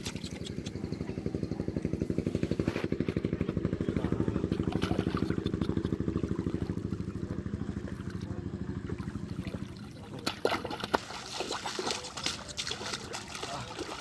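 A small engine running with a fast, steady pulse that fades out about ten seconds in. After that, hands splash and slosh in shallow muddy water.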